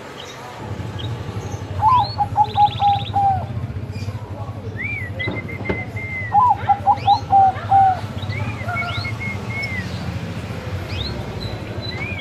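Zebra dove (perkutut, Bangkok type) cooing: two loud phrases of quick staccato notes, each ending in a longer drawn-out note, about two and six seconds in. Fainter, higher bird calls sound in between, over a steady low hum.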